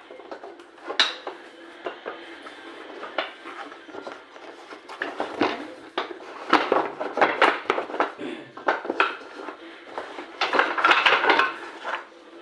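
Metal pieces clinking and clattering as they are handled and set down, in many quick irregular knocks with busier stretches about halfway through and near the end.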